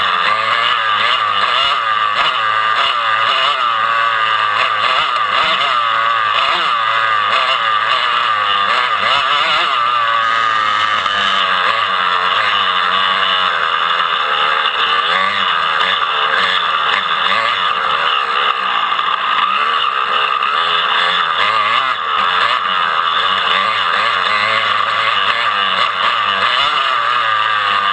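Motocross dirt bike engines running and revving, several overlapping at once, their pitch rising and falling continually in a steady, loud drone.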